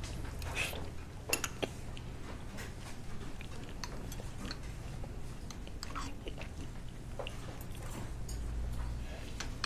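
A person eating hot rice soup with a spoon: quiet chewing and mouth sounds, with short sharp clicks of the spoon, a cluster of them about a second and a half in, over a steady low hum.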